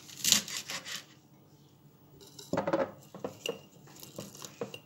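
A few knife strokes chopping purslane on a wooden cutting board, then clinks and knocks as the glass jar is handled and packed with the cut greens.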